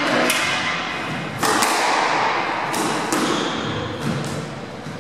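Squash ball struck by a racket and smacking off the court walls: about four sharp hits at uneven intervals, each echoing in the court.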